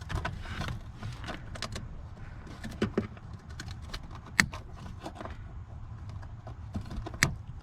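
Scattered small clicks and light metallic rattling of hand tools and wiring being handled, with two sharper clicks about four and a half and seven seconds in.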